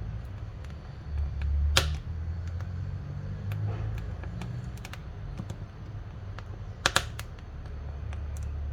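Wood fire crackling in a wood-burning stove: a low steady rumble with scattered small pops, one sharp loud pop about two seconds in and a quick double pop about seven seconds in.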